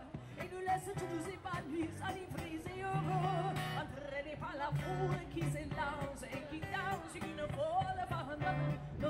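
Street buskers playing a song: a singer at a microphone with an acoustic guitar, amplified through a small speaker.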